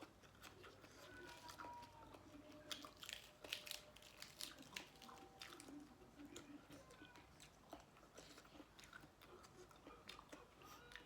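Faint, irregular chewing and crunching of a mouthful of spicy Thai seafood papaya salad with shrimp and squid, with small wet clicks of the mouth.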